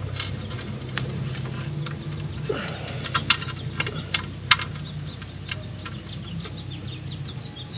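Scattered sharp metallic clicks and taps of a bolt and washers knocking against a motorcycle skid plate while the bolt is being lined up with its hole by hand, over a steady low hum.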